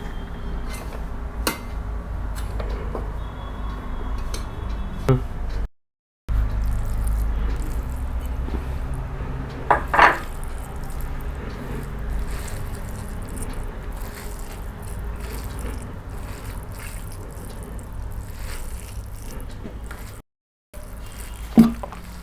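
Eating sounds: wet chewing and hand-mixing of rice with cooked spinach, with a few short clinks or knocks over a steady low hum. The sound cuts out briefly twice.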